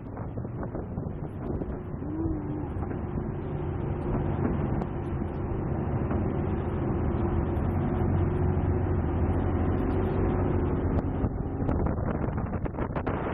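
Motor yacht's engine running under way, a steady drone that grows louder over the first several seconds, with wind buffeting the microphone.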